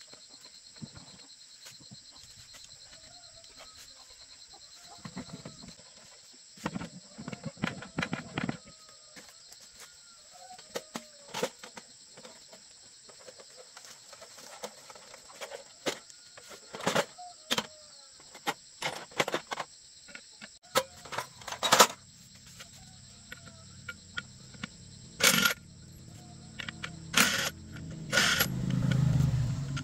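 Knocks and clatter of work around a two-wheel walking tractor, then a cordless impact wrench running in short bursts on the wheel hub nuts in the last several seconds, with sharp hammering strikes.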